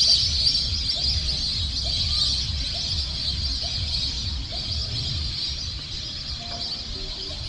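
A dense chorus of many small birds chirping together, a steady high-pitched jingling chatter, with wind rumbling on the microphone.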